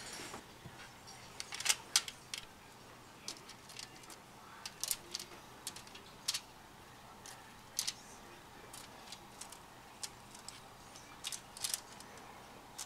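Light, irregular clicks and taps of a silicone pastry brush working melted butter onto dough rolls on a foil-lined baking sheet and dipping into a glass bowl, over a faint steady room hum.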